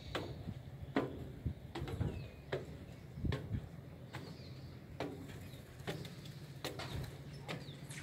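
Footsteps climbing metal boarding stairs, a sharp knock at each step a little more than once a second. Faint bird chirps are heard behind them.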